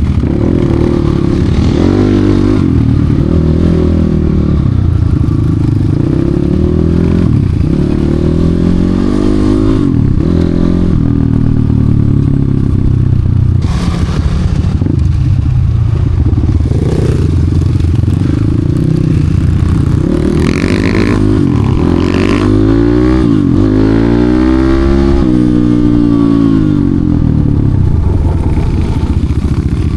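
Enduro motorcycle engine revving up and falling back over and over as it is ridden off-road, with a long rise and fall of revs about three-quarters of the way through. There is some clatter alongside.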